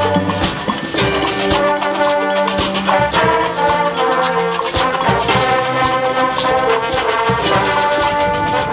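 High school marching band playing: the brass section holds loud sustained chords that shift every second or two, punctuated by sharp percussion hits.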